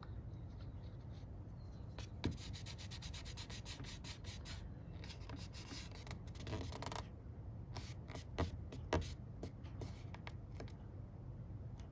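Fingertip pressing and rubbing on an F5J glider's wing skin around a repaired delamination: a fast run of scratchy clicks about two seconds in, then a few louder single clicks near the end, over a steady low hum.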